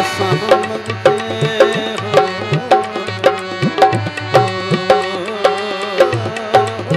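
Tabla played with the hands in a quick, steady rhythm, under a held melody and a low steady drone during an instrumental passage between sung lines.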